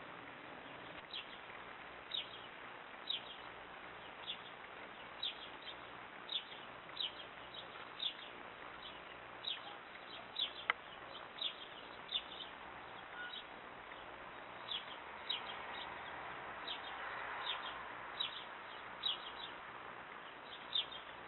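Eurasian blue tit giving short, high chirps, about one or two a second, while scuffling through the moss and grass of its nest. One sharp click about ten seconds in, and a soft rustle of nest material a little after halfway.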